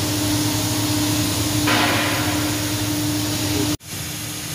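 Kotec plate beveling machine running idle after finishing its cut: a steady hum with a constant low tone and hiss. A louder hiss lasts for about a second midway. Near the end the sound drops out abruptly and comes back quieter.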